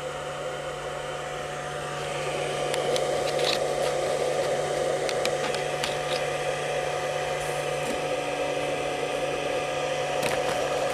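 Cooling fan of a 500 W pure sine wave inverter running steadily under a light load, a whirring noise with a steady hum, a little louder from about two seconds in. There are a few light clicks near the inverter.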